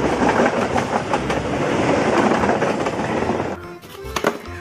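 A passenger train passing close by, its coaches' wheels clattering and knocking over the rail joints in a loud steady rush. About three and a half seconds in it cuts off, giving way to quieter background music.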